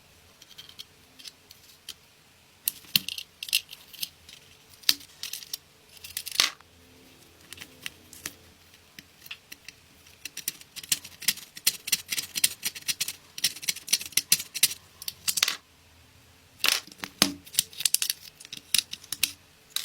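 A run of sharp, irregular clicks and clinks, scattered at first and then coming thick and fast for several seconds around the middle and again near the end.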